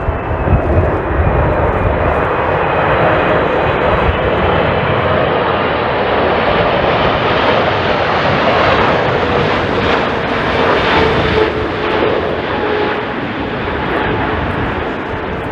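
Jet airliner's engines running loud and steady as it passes on landing, with a faint tone sliding slowly down in pitch. Strong gusty wind rumbles on the microphone underneath.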